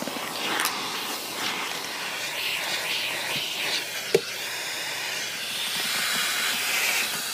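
Metro Vac Pro car vacuum drawing air through its hose and brush nozzle as the nozzle is worked over car carpet and upholstery: a steady rush of air that rises and falls as the nozzle moves, with one sharp knock about four seconds in.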